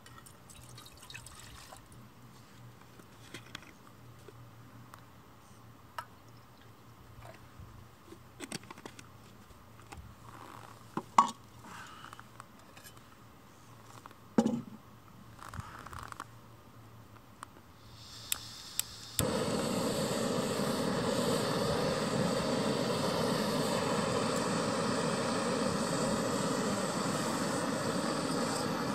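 Water poured into a small metal pot, a few metal knocks as the cookware is handled, then a gas canister camping stove is lit: a couple of clicks and a rising hiss of gas about 18 s in, and from about 19 s the burner's steady, loud rushing noise.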